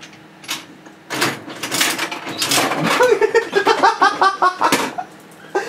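Capsule-toy (gacha) vending machine being worked by hand: a rattling, scraping grind from its coin slot and crank starting about a second in, with a man's voice over the last couple of seconds. The machine has been swallowing coins without dispensing.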